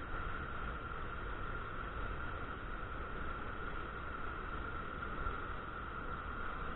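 Steady rush of churning water in a dam spillway's tailwater, an unbroken noise that holds even throughout.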